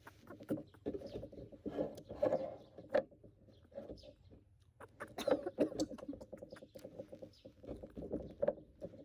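Close-up eating and mouth sounds: many soft clicks and smacks, with short pitched squeaky sounds in between.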